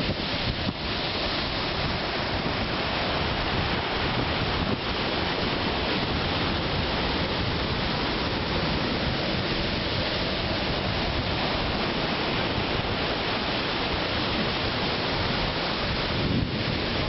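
Ocean surf breaking and washing up a sandy beach, a steady rushing roar, with wind on the microphone.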